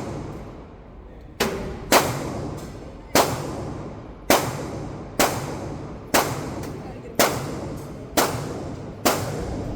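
Glock 43X 9mm pistol firing nine shots in a steady string, roughly one a second, each crack followed by a short ringing tail.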